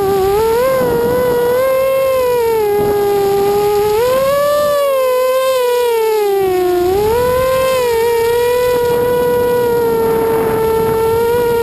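Brushless motors and propellers of an ImmersionRC Vortex FPV racing quadcopter whining, heard from on board. The pitch rises and falls with the throttle, climbing about four seconds in, dropping to its lowest about seven seconds in, then holding steady through the last few seconds.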